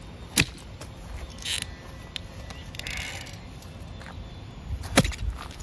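Digging in garden soil by hand: a sharp knock of the tool about half a second in and a louder one near the end, with soft scraping and rustling of earth between.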